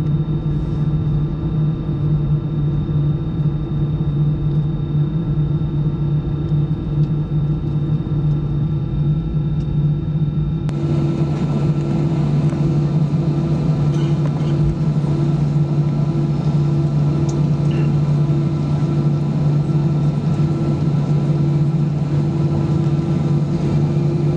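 Steady cabin drone of an Airbus A320-214 on the ground, a low steady hum with a faint high whine over it. About 11 seconds in, the sound suddenly turns brighter and hissier while the hum carries on.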